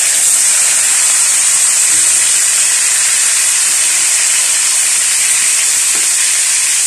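Tilapia frying in oil in a wok: a steady sizzling hiss.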